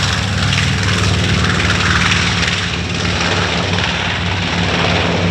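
North American B-25J Mitchell's two Wright R-2600 radial engines running at takeoff power: a loud, steady drone, a low engine hum under broad propeller noise.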